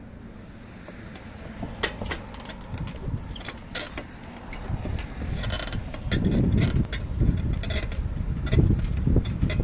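Clicks and rattles from a moving handlebar-mounted bike, with wind buffeting the microphone as a low rumble that builds from about five seconds in as speed picks up.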